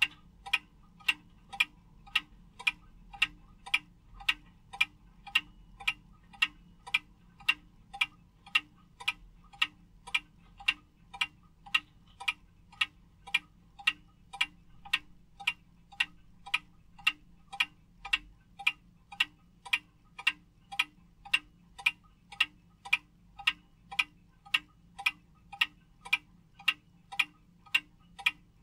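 Small Comitti wall regulator clock ticking steadily, a little under two even, sharp ticks a second from its pendulum escapement.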